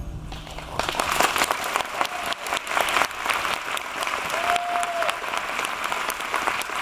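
Audience applause, beginning about a second in as the song ends. A short held high note rises above the clapping near the middle.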